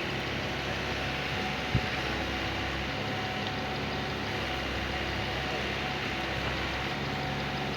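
Excavator's diesel engine running steadily, with a single sharp knock a little under two seconds in.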